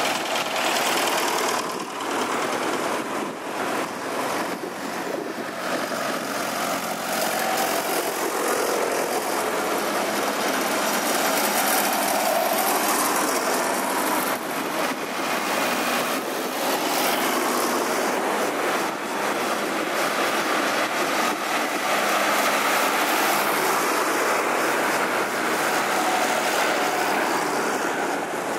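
Vintage farm tractors driving past one after another, their engines running steadily.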